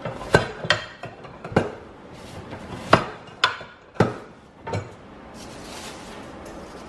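Metal tortilla press being worked by hand, its lid and lever knocking and clacking about eight times in the first five seconds as a ball of masa is pressed flat.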